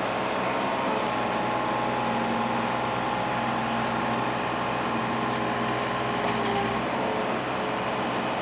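Diesel engine of a Cat 303.5E mini excavator running steadily, its pitch shifting slightly about a second in and again near seven seconds.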